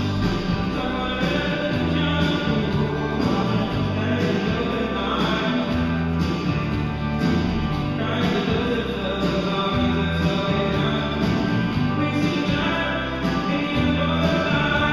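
Music: a song with a singing voice over instruments, playing steadily.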